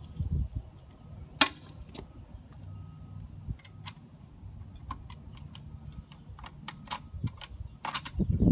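Scattered clicks and clacks of plastic and metal parts being handled and fitted on a Sun Joe 9-amp electric tiller during assembly, with one sharp click about a second and a half in that rings briefly.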